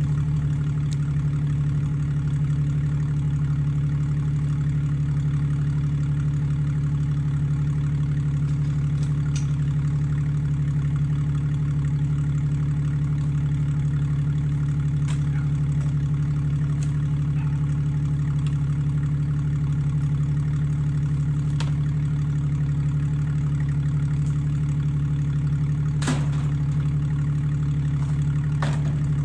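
An engine idling steadily, a constant low hum with no revving, with a few faint clicks or knocks over it.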